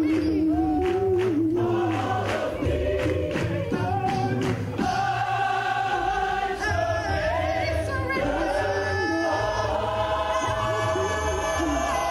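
Mixed gospel choir singing full-voiced, with lead singers on microphones above the choir and a beat in the first couple of seconds.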